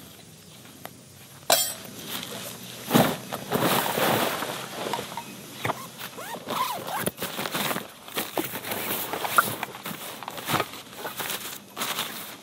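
Camping gear being handled: irregular rustling of canvas and bag fabric with short clinks and knocks of metal tent poles.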